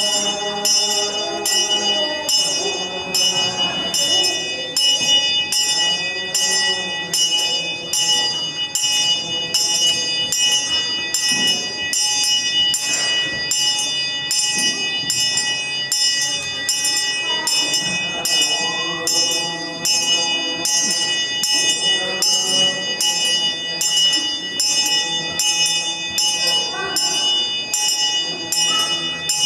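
A small brass handbell rung steadily in an even rhythm, each stroke ringing on with several clear, high tones.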